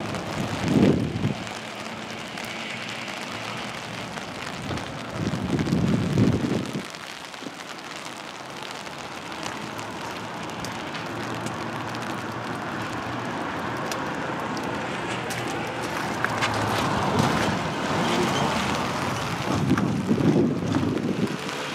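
Steady hiss of rain falling on an umbrella, with low gusts of wind buffeting the microphone about a second in, around five to six seconds in, and near the end.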